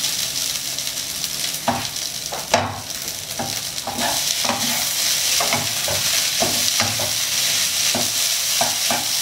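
Rice stir-frying over high heat in a nonstick frying pan, being fried until the moisture cooks off and it dries out. A steady sizzle runs under a wooden spatula scraping and turning the rice in repeated strokes, about two a second, with one sharper knock about two and a half seconds in.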